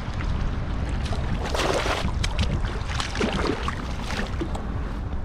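Water and wind noise around a kayak: a steady low rumble, with a short rush of noise about one and a half seconds in and a few faint clicks.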